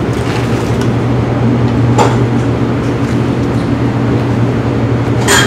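Steady low machine hum filling the kitchen, with two light clicks of dishes being handled, about two seconds in and near the end.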